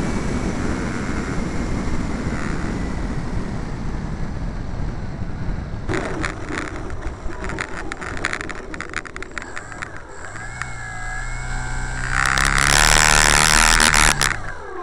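Onboard sound of an E-flite Pitts electric RC model biplane: airflow and its electric motor as it glides in low. About six seconds in, a run of rattling knocks as it touches down and rolls over the grass. Then a motor whine comes up, and near the end there is a loud harsh rush.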